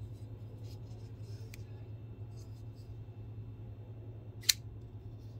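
WE Knife Mini Buster flipper folding knife flipped open: one sharp, loud click about four and a half seconds in as the blade swings out on its ceramic-bearing pivot and snaps into the titanium frame lock. A few faint clicks of the knife being handled come before it.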